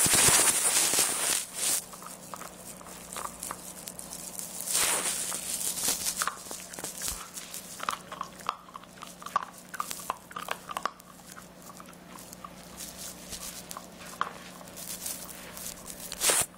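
Golden retriever puppy chewing and gnawing a treat close up: a run of small clicking, wet chews. Bursts of rustling near the start and just before the end.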